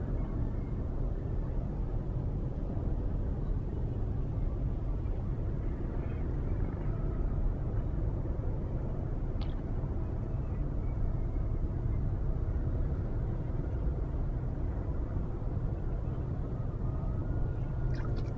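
Steady low outdoor rumble with no clear source, with a faint tick about halfway through.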